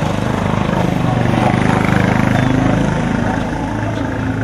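A small vehicle engine running steadily, growing louder about two seconds in and then easing off, with voices in the background.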